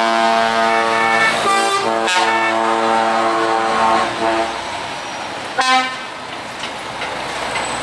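Truck air horn sounding a long, steady blast of several tones for about four seconds, broken briefly near the middle, then a short toot about six seconds in.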